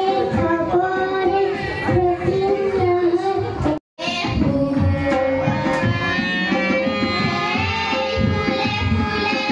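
A young child singing into a microphone over harmonium accompaniment. After an abrupt cut just under four seconds in, girls sing a song together over harmonium and hand drums.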